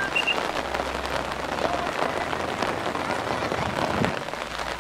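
Light rain pattering steadily: an even hiss dotted with many small drop ticks.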